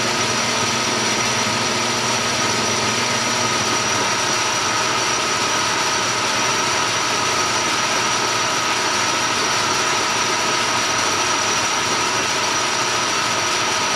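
Metal lathe running steadily, its three-jaw chuck spinning while a small metal pin is turned down another ten thousandths. A steady hum with a thin high whine.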